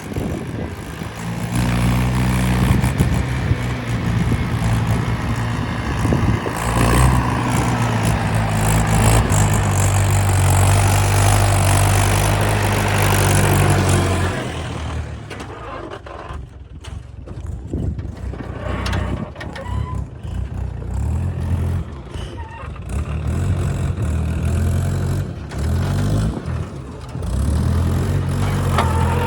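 Heavy diesel engine of earth-moving machinery working under load. It revs up about two seconds in and holds high revs until about fourteen seconds, then drops to a lower, uneven run that rises and falls.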